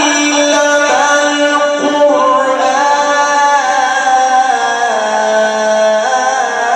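A male reciter's voice chanting the Quran in the drawn-out mujawwad style: long held melismatic notes that step slowly downward in pitch.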